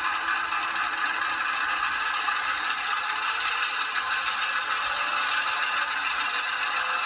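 Diesel engine sound from an ESU LokSound decoder in an HO-scale Athearn switcher, running steadily through the model locomotive's small speaker.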